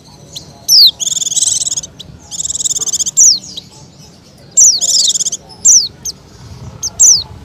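A bird calling: several short, sharp whistles that fall steeply in pitch, mixed with three fast, rattling trills.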